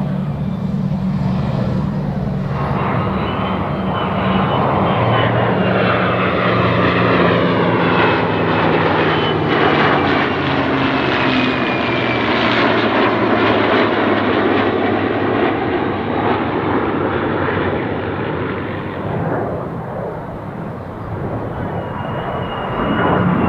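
A formation of an A-10C Thunderbolt II, an F-35A and a piston-engined propeller warbird flies past, a mix of jet roar, a propeller engine's steady drone and a thin high whine. The sound swells to its loudest in the middle as the aircraft go by, then eases off near the end.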